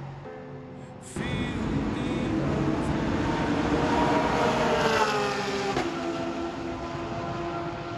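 Naturally aspirated race car engines running at full throttle on the circuit. The sound jumps in about a second in and swells as a car passes, loudest around four to five seconds in, with its pitch falling as it goes by.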